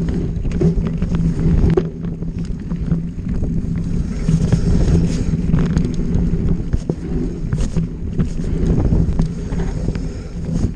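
Wind buffeting the microphone during a fast enduro trail run, with steady tyre and drivetrain noise and frequent short rattles and knocks from riding over rough ground.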